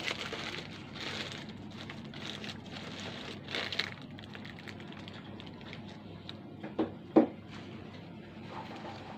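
Paper burger wrapper crinkling as it is handled and peeled back while a burger is bitten and eaten. Two short thumps about seven seconds in are the loudest sounds.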